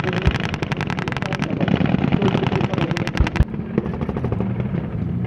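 Automatic gunfire in fast bursts from soldiers' weapons during a military tactical exercise: one long burst, then another about two seconds in, trailing off into scattered single shots. A steady low rumble runs underneath.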